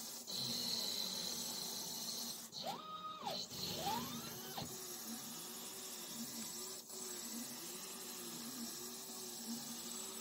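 Stepper motors of a 5-axis 3D printhead whining as they drive coordinated rotate-and-tilt moves, the pitch rising and falling with each acceleration and slowdown: a run of short repeated swells, with a higher whine that climbs, holds and drops about three seconds in.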